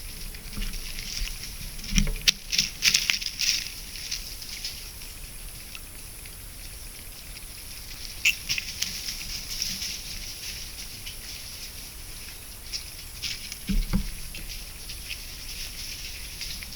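Irregular rustling and pattering, like something small moving or scratching in dry leaf litter. It comes in short clusters a couple of seconds in, again about halfway and once more near the end, over a faint steady high hiss.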